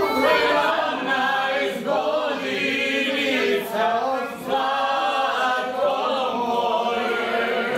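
A small group of men and women singing a song together, unaccompanied, in sustained held notes.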